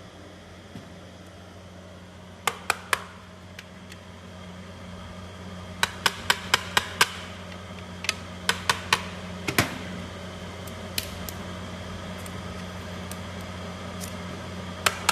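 Steady electrical hum of a plastic welding machine standing powered, with scattered sharp clicks in small quick clusters, about half a dozen together around the middle.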